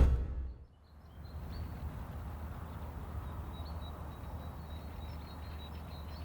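Outdoor ambience: a steady low rumble with faint bird chirps above it.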